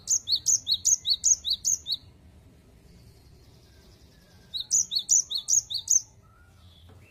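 A cinereous tit singing its 'wucit-wucit' song: two quick bursts of rapidly repeated high two-note whistles, each burst lasting a second or two, with a pause of about two and a half seconds between them.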